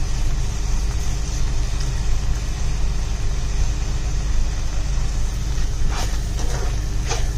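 Masala sautéing in a non-stick pan over a steady low rumble and hiss. About six seconds in, a slotted spatula starts stirring and scraping through it, a few strokes.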